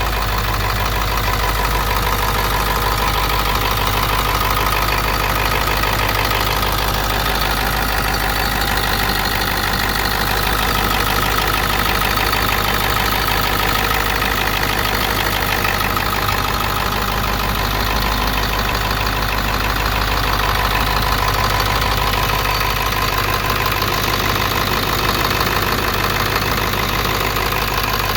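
Ford 7.3 Power Stroke V8 turbo diesel engine idling steadily, with no revving.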